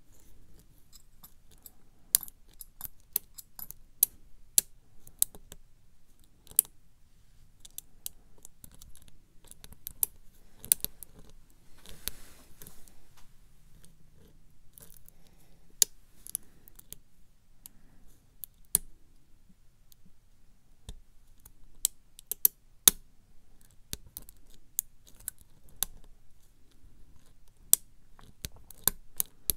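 Steel hook pick working the pin stack of a K1 Locks Unkle Billy brass cylinder lock under tension during single-pin picking: irregular sharp ticks and clicks as pins are lifted, with a brief scratchy rasp of the pick about eleven to thirteen seconds in.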